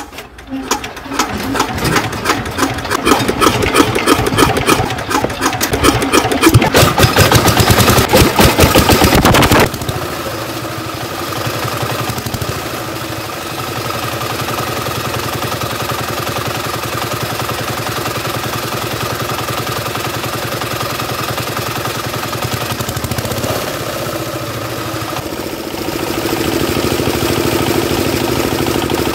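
Single-cylinder diesel engine of a two-wheel walking tractor starting by hand crank and catching, then running fast with loud, rapid firing strokes. After about ten seconds it drops abruptly to a steadier, quieter run, which picks up a little near the end.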